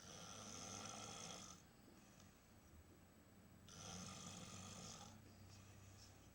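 Snoring: two long, hoarse snoring breaths, the first right at the start and the second about four seconds later, each lasting about a second and a half.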